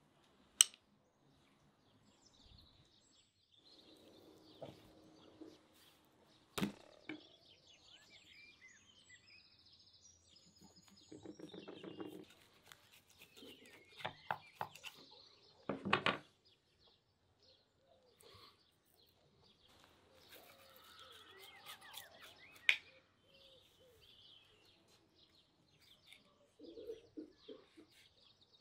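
Birds chirping in the background while a knife cuts and scrapes along a rack of raw beef ribs on a wooden cutting board. There are a few sharp knocks, the loudest near the start and about two-thirds of the way in.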